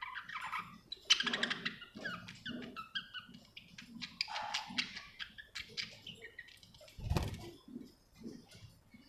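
Budgerigar chattering: a fast, busy run of short chirps and warbling notes, with a louder burst about seven seconds in.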